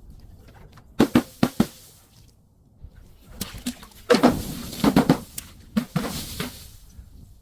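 A series of sharp thumps and knocks in three irregular groups: four quick hits, then a denser run of hits, then a few more.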